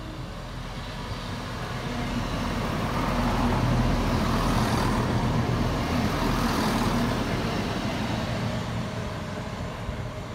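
Class 220/221 Voyager diesel train passing at speed: the rumble of its engines and the noise of its wheels on the rails swell over a couple of seconds, with a steady low engine note, are loudest around the middle, then fade as it draws away.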